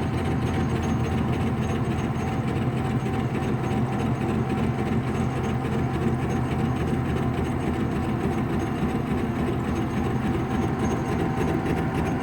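Metal lathe running steadily, turning a welded-up mixer hook shaft while the tool takes the high spots off the weld, with a steady hum and a faint high whine.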